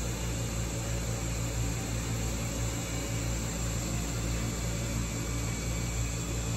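Steady low mechanical hum with an even hiss from aquarium pumps and filtration equipment running.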